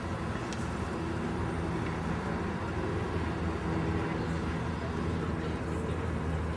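Steady low rumble of outdoor urban background noise, with a faint continuous hum and no distinct events.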